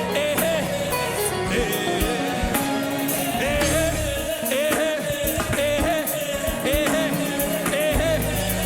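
Live gospel worship music: a band with keyboard playing steadily while voices sing over it.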